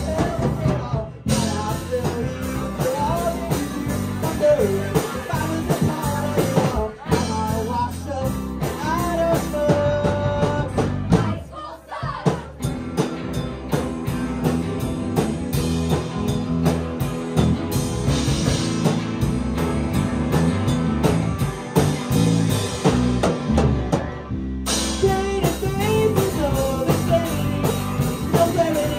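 Live rock band playing with a sung lead vocal over drum kit, guitar and bass. The band drops out briefly a few times, about a second in, near the middle and again after about 24 seconds.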